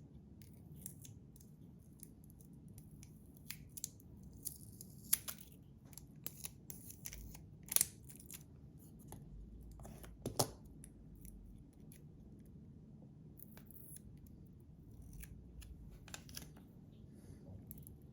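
Adhesive tape being peeled off 3D-printed plastic slider plates, with scattered sharp clicks and short crackling scrapes as the small plastic parts are handled. The loudest clicks come about five, eight and ten seconds in.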